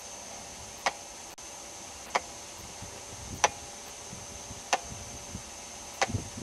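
Sharp clicks at a steady pace, about one every 1.3 seconds, five in all, over a steady hiss with a thin high whine.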